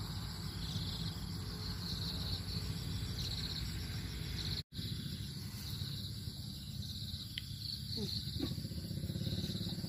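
Insects trilling in short high pulsed bursts, repeating about once a second, over a steady low rumble. The sound cuts out for an instant about halfway through.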